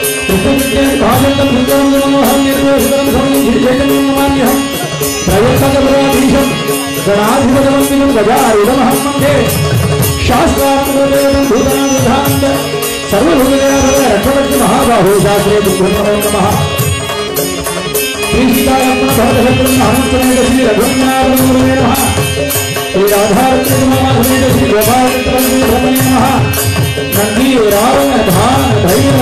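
Male voices singing a devotional Carnatic-style dhyana sloka, backed by a harmonium drone, mridangam drumming and small hand cymbals keeping time. The held sung notes break off and restart every few seconds.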